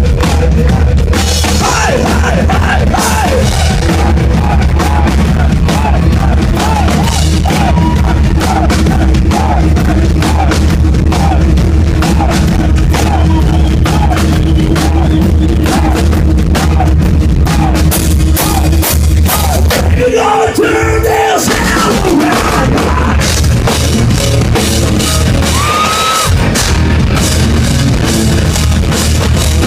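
A hard rock band playing live, with drum kit and electric guitar, driving a repeating riff. The band drops out briefly about two-thirds of the way through, then comes back in.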